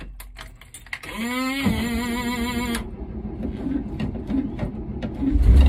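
1979 VW T2 campervan's air-cooled flat-four being cranked: a whine rises to a steady pitch with a pulsing waver for under two seconds and stops, then near the end the engine catches with a loud low rumble, starting first time after months off the road.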